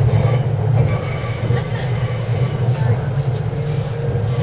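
Running noise of a JR East 253 series electric train heard inside the passenger car: a steady low rumble of wheels on track, with faint high-pitched wheel squeal coming and going over it.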